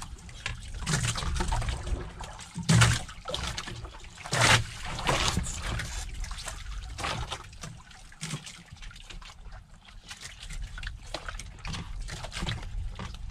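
Mealtime eating noises from several people eating with their hands: scattered wet mouth smacks and slurps, the sharpest about 3 and 4.5 seconds in, over a low steady rumble.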